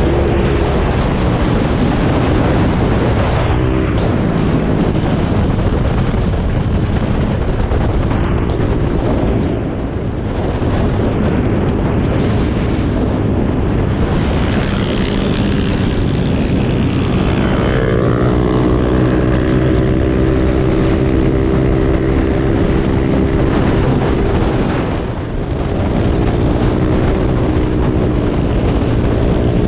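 Motorcycle engine and exhaust running under way, with wind rushing over the microphone. The engine note falls and rises several times with throttle and gear changes: it drops about ten seconds in and again near 25 seconds, and climbs steadily just after the middle.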